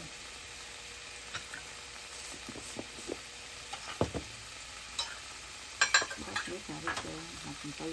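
Tofu cubes sizzling steadily in a nonstick frying pan with a little liquid and sesame oil. A few light clicks and knocks sound over it, the loudest about six seconds in.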